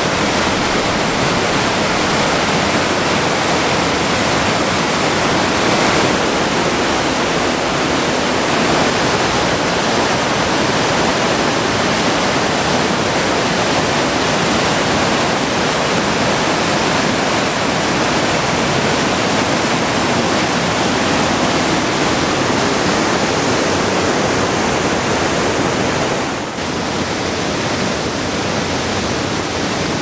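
Waterfall and whitewater rapids rushing over rock: a loud, steady rush of water that drops a little in level near the end.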